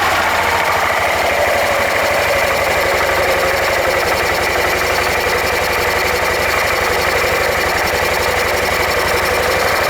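Suzuki Skywave 400 (CK44A) scooter running, with a fast, even rattle from its drive unit (pulley and clutch assembly): the abnormal noise of a faulty drive system.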